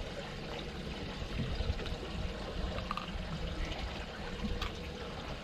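Water sloshing and trickling at a small boat, with small knocks and a faint steady hum underneath.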